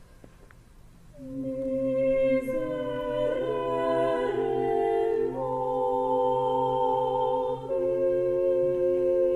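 Mixed choir enters about a second in, singing sustained chords that shift several times.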